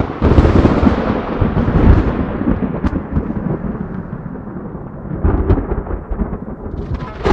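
Loud, low rumbling sound effect like thunder that starts suddenly, slowly fades, and swells again about five seconds in.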